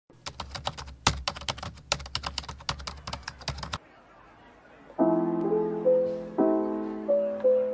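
A rapid run of computer-keyboard typing clicks for nearly four seconds, then, after a short pause, soft piano music with sustained notes starts about five seconds in.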